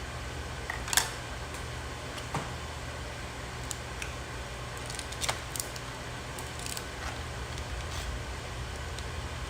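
Snow crab leg shells being cracked and picked apart by hand: a few sharp cracks and clicks, the loudest about a second in and several more close together around the middle, over a steady low hum.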